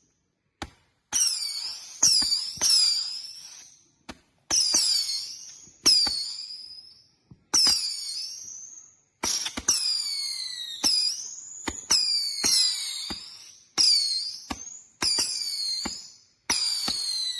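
Consumer firework cake firing shot after shot, each a sharp pop followed by shrill whistles falling in pitch, about fifteen shots at uneven spacing.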